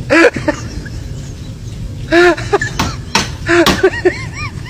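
Dishes clattering and knocking in a kitchen sink during washing up, with several short wordless voice sounds between the knocks.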